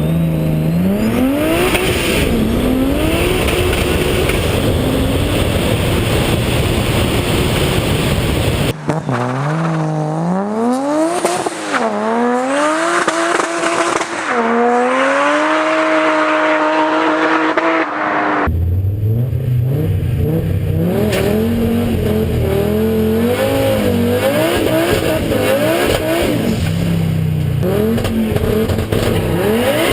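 Turbocharged race car engine accelerating hard through the gears, its pitch climbing and then dropping back at each upshift. The sound changes abruptly about 9 seconds and 18 seconds in, as separate runs are cut together.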